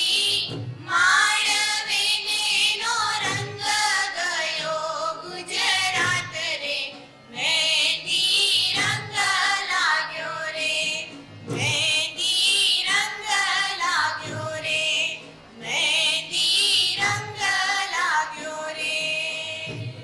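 A high voice singing a melodic song with a wavering vibrato, in phrases of about three to four seconds separated by short breaths.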